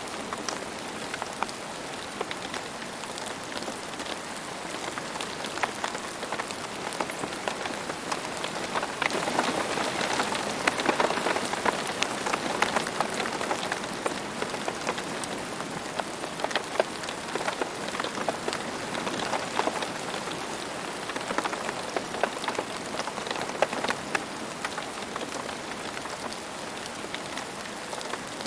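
Steady rain falling, an even hiss thick with the patter of individual drops, swelling slightly for a few seconds near the middle.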